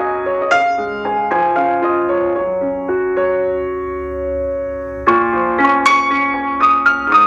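Background piano music: a melody of single struck notes, a chord held for a couple of seconds in the middle, then a new run of notes starting about five seconds in.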